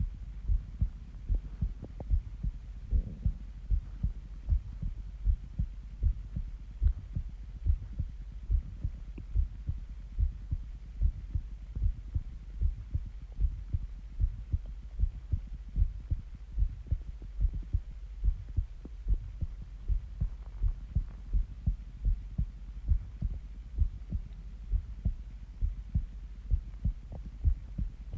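A person's heartbeat, a steady, even rhythm of low thumps.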